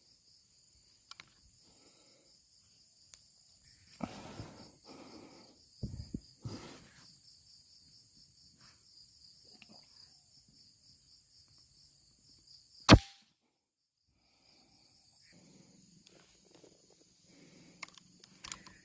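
A single sharp, loud shot about 13 seconds in, typical of an air rifle fired at a bird, over insects chirring steadily; a few soft rustling handling noises come earlier.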